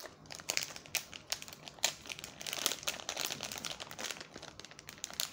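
Plastic bag of a squishy toy crinkling and crackling in the hands as it is opened to take the squishy out: a run of sharp crinkles, densest a little past halfway.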